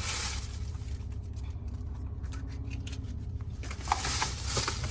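Faint clicks and rustling of plastic sauce cups and a takeout container being handled as dipping sauce is poured onto chicken wings, over a steady low hum.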